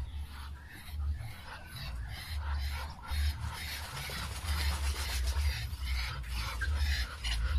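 A Muscovy duck bathing in a tub of water: a rapid run of rasping, splashing noises, over an uneven low rumble.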